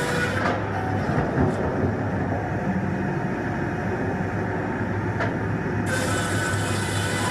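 Engine running steadily with a constant low hum.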